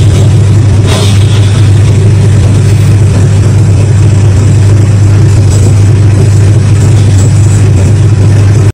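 Heavy diesel truck engine running steadily at close range, loud, with a deep, even hum.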